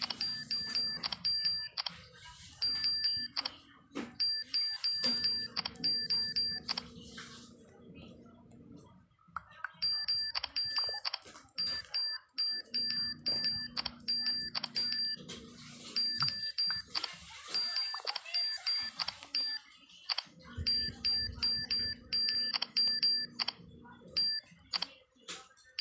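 Smartphone on-screen keyboard key-press sounds: short, high tick-like beeps in quick runs as letters are typed, with two pauses in the typing, over a low hum that comes and goes.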